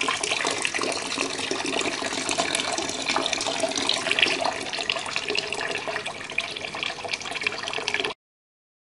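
Water running and splashing steadily, pumped by a 12 V DC mini submersible pump; it cuts off suddenly about eight seconds in.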